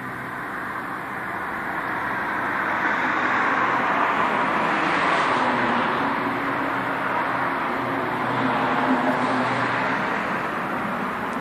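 Road traffic passing: a swelling rush of tyre and engine noise that builds over the first few seconds, is loudest around the middle, and swells again near the end.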